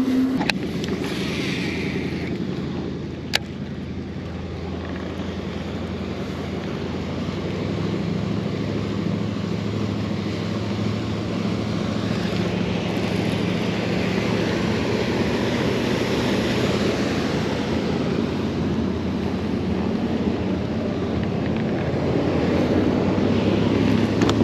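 Steady motor drone on a lake, slowly growing louder, with wind on the microphone and water noise; a single sharp click about three seconds in.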